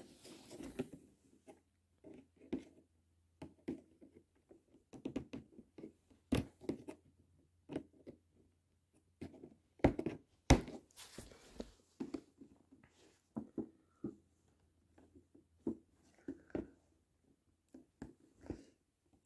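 Cardboard figure box being handled and opened by hand: irregular knocks, taps and rustles, with a few louder knocks about ten seconds in.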